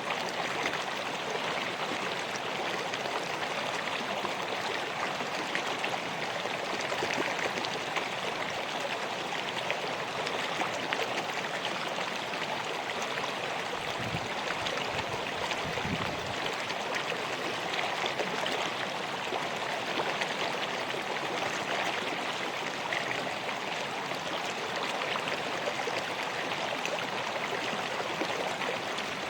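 River water flowing steadily over rocks, a continuous rushing and babbling. A brief low rumble sounds about halfway through.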